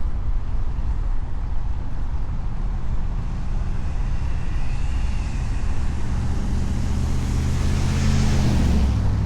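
Vehicle driving on a road: steady engine and road noise, with an engine tone and a hiss building over the last few seconds, peaking and then falling away suddenly near the end, as a vehicle passes.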